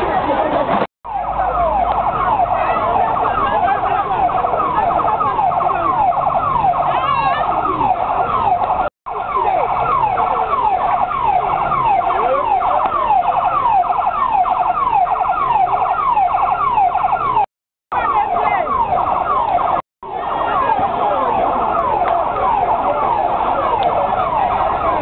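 Fire engine siren wailing in a fast repeating pattern of falling sweeps, several a second. It cuts out briefly a few times.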